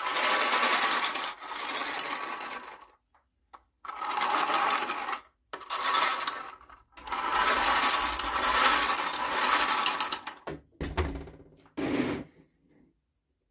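Plastic gears in a 3D-printed gearbox on a brushless motor whirring and rattling as the assembly is turned by hand, in five bursts of one to three seconds each. Fainter knocks and rustles of handled parts and wires follow near the end.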